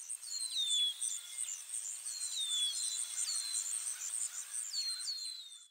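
Nature ambience: insects chirping in a fast, high, even pulsing, with a bird repeating a short whistled call that slides downward several times. The sound cuts off suddenly at the very end.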